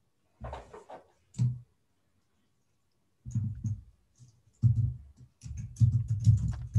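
Irregular clusters of clicks and clacks, like typing on a computer keyboard. They come in short runs, sparse at first and denser and louder in the last few seconds.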